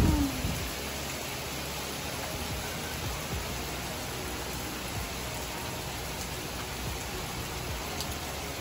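Heavy rain falling steadily, a constant even hiss. A brief thump right at the start.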